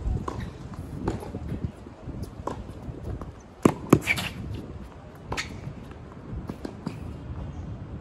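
Tennis rally on a hard court: a tennis ball being struck by racquets and bouncing off the court, about one sharp pop every second. The loudest is a close pair of hits a little before the middle.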